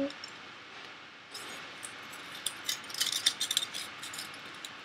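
Aluminium foil crinkling as it is folded and pressed around a fingertip over a cotton ball, the foil wrap used to soak off nail polish. A quick run of small crackles, busiest about three seconds in.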